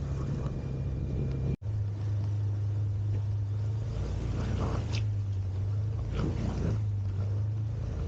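A 125 cc scooter's engine running steadily while riding, as a low hum. The sound drops out for an instant about a second and a half in, and the hum comes back a little lower in pitch.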